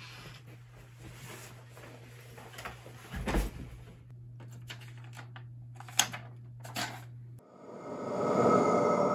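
Quiet room with a steady low hum; a soft thump a little after three seconds in as someone drops into a leather office chair, then two sharp clicks at the computer. Near the end the hum cuts off and a rising musical drone swells in.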